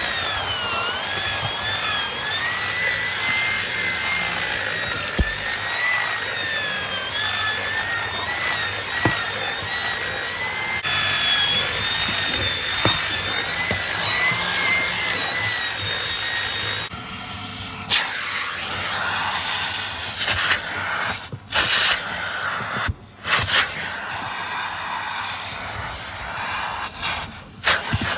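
Numatic NVH vacuum cleaner running, its suction whistle wavering in pitch as the nozzle works over the car's seats. About two-thirds of the way through the whistle drops away and the nozzle scrapes and rubs along the upholstery, the suction choking off for a moment several times.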